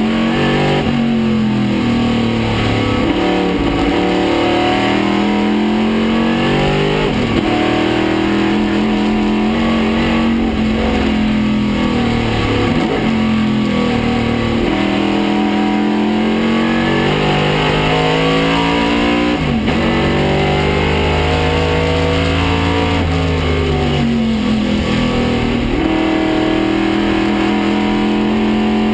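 Small-block 302 V8 of a 1969 Chevrolet Camaro Trans-Am race car at racing speed, heard from inside the cockpit. The engine note climbs steadily under acceleration and then drops sharply on lifts and shifts, about eight or nine times.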